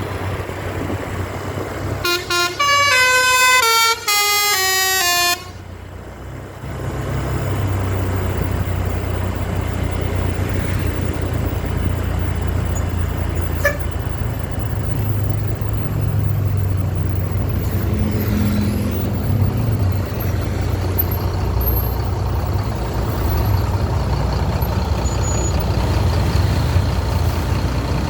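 Bus telolet horn playing a quick run of notes stepping down in pitch for about three seconds, starting about two seconds in, then the bus engine running with a steady low drone.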